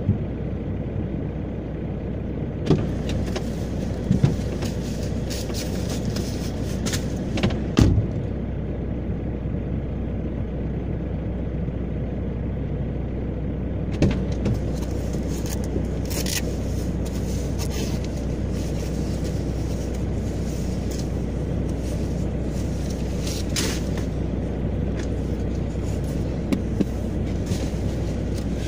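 Opel Y20DTH 2.0-litre four-cylinder turbodiesel idling steadily while it warms up after a cold start in frost. A few short knocks and clicks sound over the idle.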